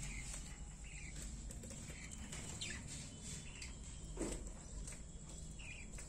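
Faint short chirps from young budgerigars, scattered every second or so over a steady low hum, with a brief louder low sound about four seconds in.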